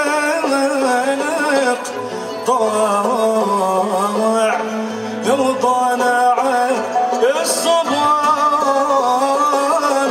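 Live Algerian malouf (Andalusian) ensemble playing an ornamented melody together: bowed violins held upright, ouds and qanun, with plucked lutes underneath.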